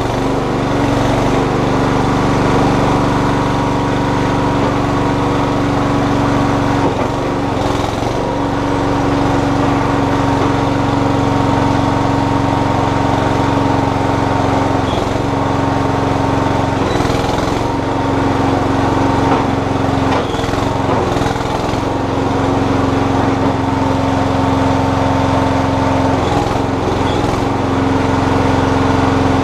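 Terramite compact backhoe's engine running steadily while its hydraulics are worked, the engine note shifting briefly a few times as the load changes.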